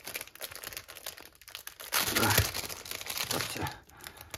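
Clear plastic wrapping around a rolled diamond painting kit crinkling as it is handled and opened, faint at first, then louder for a couple of seconds about halfway through.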